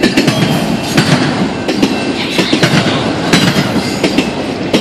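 Freight train of autorack cars rolling past: steel wheels clattering over rail joints in an uneven run of sharp clacks over a steady rumble.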